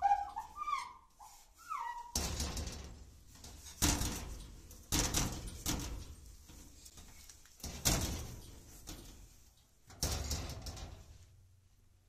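Bamboo-fibre reusable wipe scrubbing hard on mirror glass in about five separate strokes, each about a second long, working at an old sticker mark. A few short squeaks come in the first two seconds. The rubbing fades out near the end.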